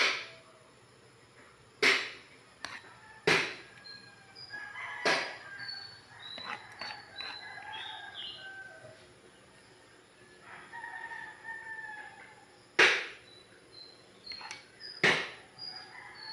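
Roosters crowing now and then, with short high bird chirps, under several sharp knocks of a plastic serving spoon against a bowl and a pot.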